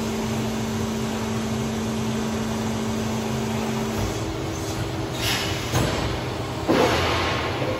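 KraussMaffei 1600-8000 MC injection moulding machine running with a steady hum and two held tones; the lower tone stops about halfway through. Then come two short hisses and a louder, second-long hiss near the end.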